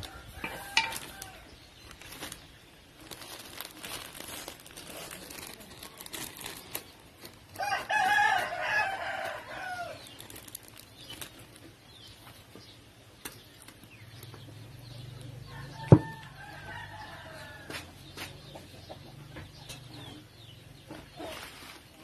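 A rooster crowing several times, the longest crow about eight seconds in and another a little past the middle. Light clinks of a spoon and wooden pestle against a clay mortar run underneath, with one sharp knock about sixteen seconds in.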